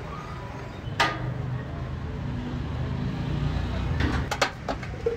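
Sheet-metal casing of a battery charger knocking and clinking as it is handled and fitted around the transformer: one sharp knock about a second in, then a quick cluster of clinks near the end. Underneath is a low rumble that grows louder.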